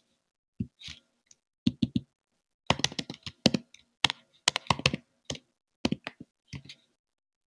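Typing on a computer keyboard: a rapid, irregular run of key clicks with a short pause about two seconds in.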